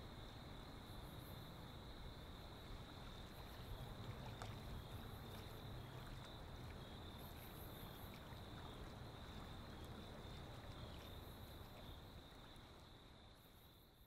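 Faint ambient soundscape: a steady high insect chorus over low rumbling noise, fading out near the end.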